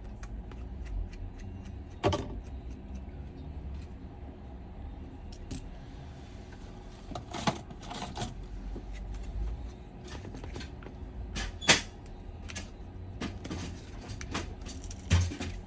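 Scattered sharp clicks and taps of small repair tools and phone parts being handled on a workbench, the loudest about twelve seconds in, over a steady low background rumble.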